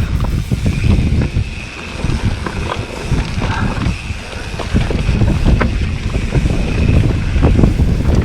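Mountain bike ridden fast down a dirt trail: heavy wind rumble on the microphone with repeated knocks and rattles from the tyres, chain and frame over rough ground, and a faint steady high buzz through most of it.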